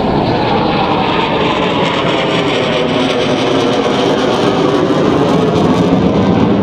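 An F-22 Raptor's twin Pratt & Whitney F119 turbofan engines running as the jet flies its display overhead: a loud, steady jet noise that builds slightly toward the end.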